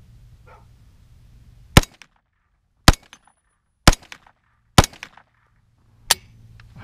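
Five single shots from a KE Arms AR9 9mm AR pistol, fired in semi-auto about a second apart, the last after a slightly longer pause.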